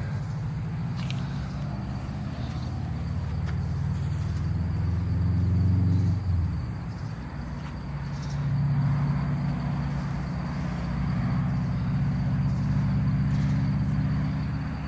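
Low engine rumble that swells to a peak about six seconds in, drops away, then rises again and holds until near the end, as of motor vehicles passing.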